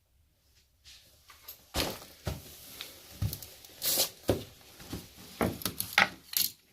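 Irregular knocks, clunks and clatter of hard objects being handled and set down, a dozen or so sharp strikes spread over several seconds.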